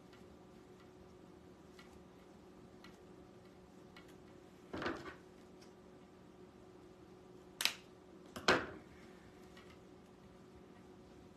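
Quiet room with a faint steady hum and light ticks, broken by a brief rustle about five seconds in and, a few seconds later, a sharp click followed by another short rustle: wired ribbon being handled and tied onto a deco mesh wreath.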